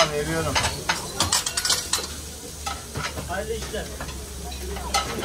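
Food sizzling in a shop kitchen, with sharp clicks and clatter of metal utensils, several in quick succession about a second in and another near the end.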